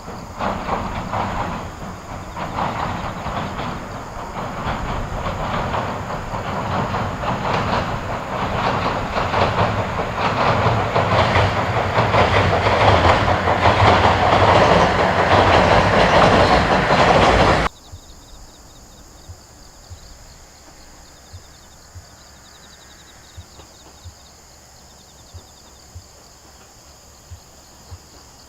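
JR Central 119 series electric train crossing a steel railway bridge, its wheels clattering rhythmically over the rail joints and growing louder as it comes closer. About three-fifths of the way through the sound cuts off suddenly. Faint insect chirping and a few small ticks follow.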